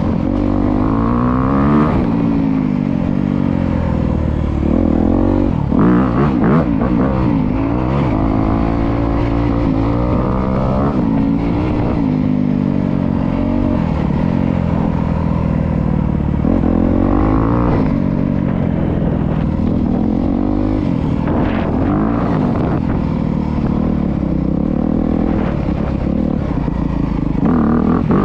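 2025 Honda CRF250R's single-cylinder four-stroke engine being ridden hard, revving up and dropping back again and again as the throttle is worked and the gears change.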